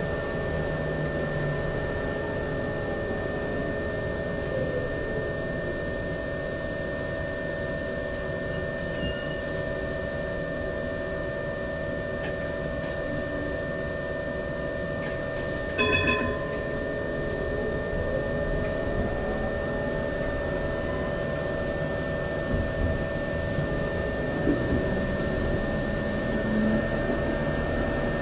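Inside an HTM GTL8 articulated tram: a steady electrical hum and whine from its equipment. A traction whine falls in pitch over the first few seconds, then rises again just after a short beep about halfway through, as the tram slows and then pulls away.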